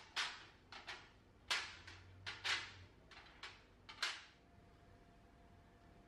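Paper cupcake liners being pressed and set in place on a metal baking tray: about eight short, crisp rustles and taps in the first four seconds, then they stop.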